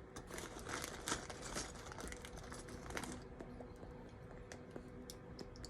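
Lego pieces and their plastic packaging being handled: rustling and crinkling with small plastic clicks for about three seconds, then scattered faint clicks.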